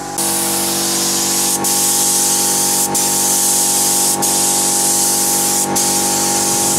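Compressed-air paint spray gun hissing as paint is sprayed onto a van's rear panel. The hiss starts a moment in and dips briefly four times, about every second and a half.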